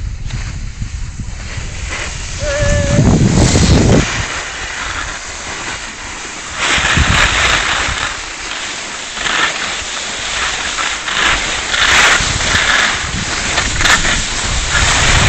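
Wind buffeting the microphone during a fast downhill run on snow, mixed with the hiss of sliding over the snow. It swells loudly in gusts from about two to four seconds in and again through the second half.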